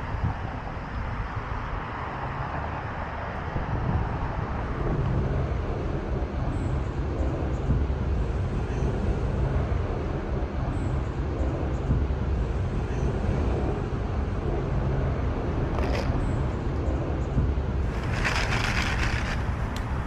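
City street ambience: a steady rumble of road traffic, with a short hissing burst near the end.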